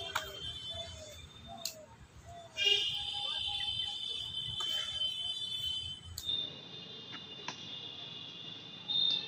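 High, steady insect buzzing, louder from about three seconds in and fainter after a break near six seconds, with a few faint clicks.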